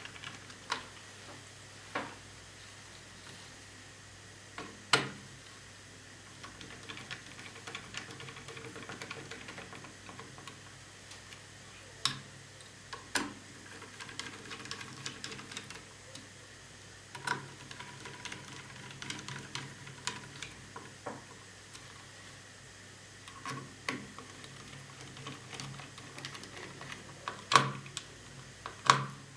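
Irregular small clicks, taps and scraping from plastic and metal laptop parts and a small screwdriver being handled during reassembly, with a few sharper knocks, the loudest near the end.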